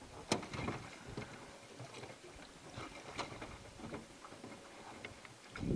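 Oars being rowed in the oarlocks of a small flat-bottomed fishing boat: scattered light knocks and clicks from the oars working.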